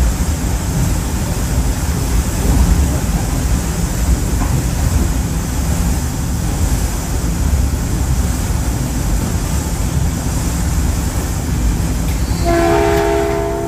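Caltrain passenger train running along the line with a steady low rumble. Near the end, a multi-tone train horn sounds once for about a second.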